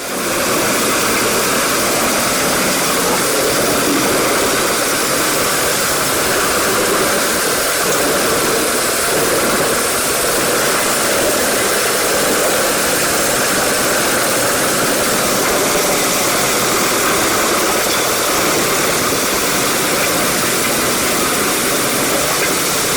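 Biber 92 wood chipper running steadily under power: a loud, even mechanical noise with an engine hum underneath.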